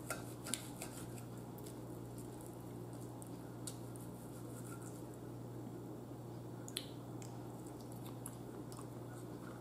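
Faint chewing and wet mouth sounds while eating steak, with a few light clicks of a knife and fork cutting in the bowl, over a steady low hum.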